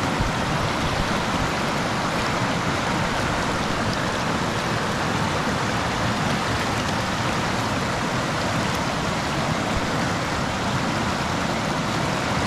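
Rocky river rushing through shallow rapids over boulders: a steady, unbroken rush of water.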